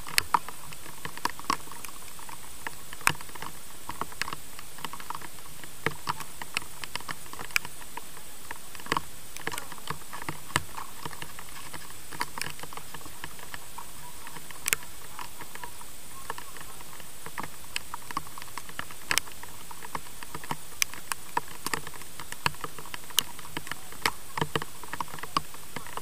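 Many light, irregular clicks and taps, a few each second, over a steady hiss.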